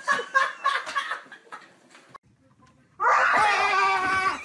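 A person laughing in short bursts, then after a brief pause a sudden loud scream held for over a second.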